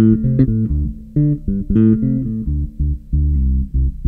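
Electric bass played through a Vox amPlug2 Bass headphone amplifier on its low-gain channel with the tone dial at 1, a clean tone. It plays a run of short plucked notes with brief gaps between them.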